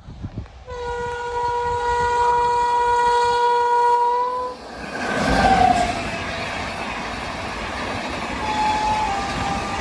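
Indian Railways WAP7 electric locomotive sounding its dual horn in one steady blast of about four seconds, then the train rushing past at high speed, about 130 km/h, with a brief falling tone as the locomotive goes by. The steady rush and rattle of the coaches' wheels on the rails follows.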